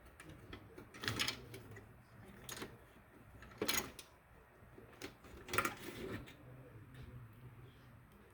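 Clicks and knocks of hands working on hard drive power connectors and drive parts inside a desktop computer case, about four sharp ones with light rustling between.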